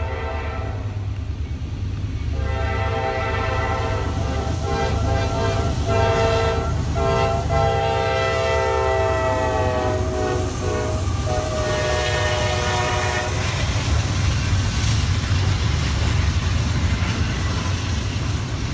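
Diesel locomotive horn blowing a long sounding with a few brief dips for a grade crossing, stopping about two-thirds of the way through. Then the freight train rolls past with steady wheel and rail noise over the low drone of the engines.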